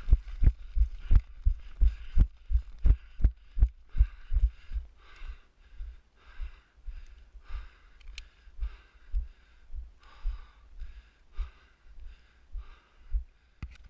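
Footsteps of a person running over grassy ground, picked up as heavy thuds through the camera they are wearing, each with a brushing rustle. About three strides a second at first, slowing to a steadier, slower pace about four seconds in.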